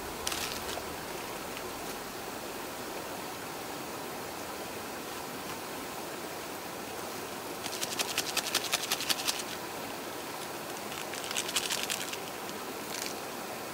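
Steady rush of a shallow rocky stream, with a wood fire burning under a mess tin of ramen. About eight seconds in, and again near eleven seconds, come short runs of rapid, sharp high ticking, each lasting about a second.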